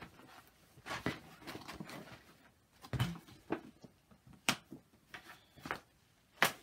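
Handling noises from cross-stitch project materials being put away: scattered rustles and light taps, a duller knock about three seconds in, and a sharp click near the end.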